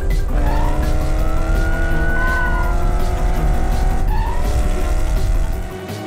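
Cartoon race car engine sound effect running at speed with a steady low rumble, over background music. The engine noise drops away near the end.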